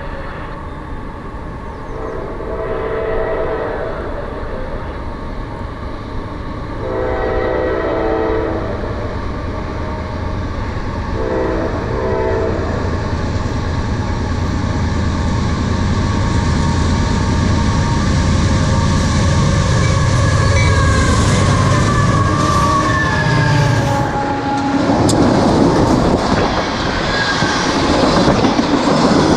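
A CSX freight train's diesel locomotives sound the horn as they approach: two long blasts and a shorter third. The engines' rumble then builds, and the horn tones slide down in pitch as the locomotives pass about 24 s in. After that the tank cars roll by with a loud clatter of wheels on rail.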